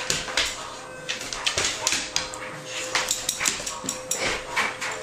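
Two dogs playing tug-of-war over a piece of fabric on a hardwood floor: irregular clicking and scrabbling, with brief whimpers.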